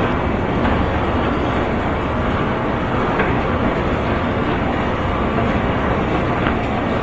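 Airport baggage conveyor belt running steadily: a continuous mechanical rumble with a few faint clacks.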